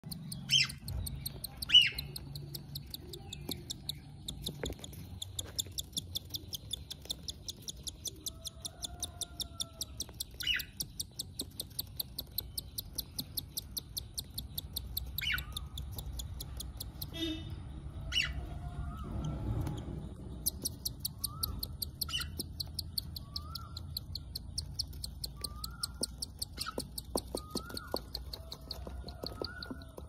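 Cockatiel chick's rapid high-pitched feeding squeaks, about five a second, while an adult cockatiel feeds it beak to beak; the squeaking pauses twice. A few short rising chirps come in the second half, and two sharp clicks come in the first two seconds.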